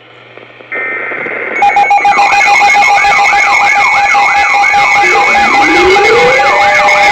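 Weather radio alert siren announcing an incoming severe thunderstorm warning. A steady electronic tone comes in under a second in, then about a second and a half in a loud siren starts. It has a fast up-and-down yelp about twice a second over a steady tone, with a slower rising wail repeating every couple of seconds.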